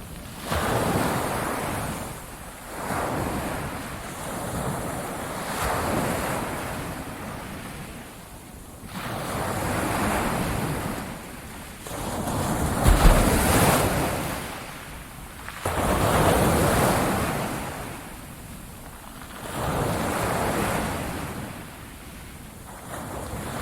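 Ocean waves breaking on a shore, each surging and washing back every few seconds. The biggest wave breaks about halfway through, with a low thump.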